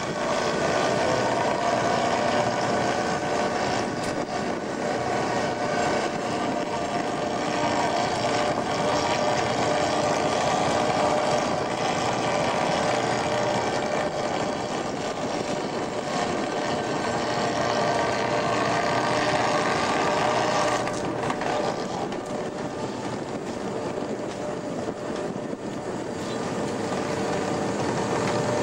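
Steady drone of a working fishing vessel's engine and deck machinery, holding an even hum of several steady tones and easing slightly for a few seconds about three-quarters of the way through.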